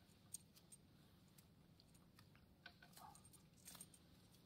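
Near silence with a few faint, scattered small clicks and ticks of metal parts being handled on a fiber laser cutting head's fiber connector.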